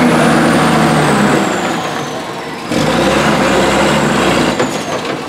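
A large vehicle's engine running steadily, with a deeper low hum joining about halfway through.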